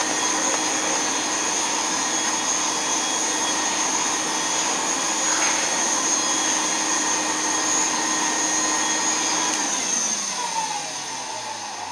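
Antique Brother vacuum cleaner running at suction, a steady rushing noise with a high whine over it. About ten seconds in it is switched off, and the motor winds down with its pitch falling.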